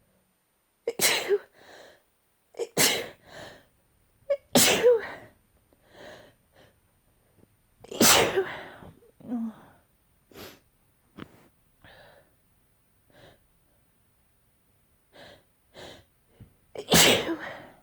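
A person in a sneezing fit: five loud, wet sneezes, the first three about two seconds apart and the last two further spaced, with quieter breaths between them.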